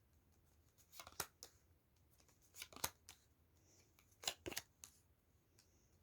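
A deck of tarot cards being shuffled, heard as three short bursts of crisp card snaps about a second and a half apart.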